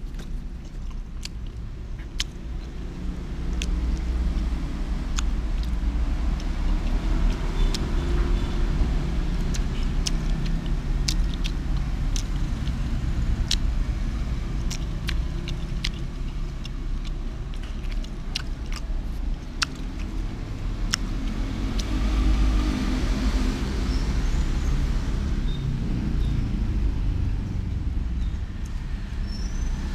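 A steady low rumble with many scattered sharp clicks, from wooden chopsticks picking at rice on a paper wrapper.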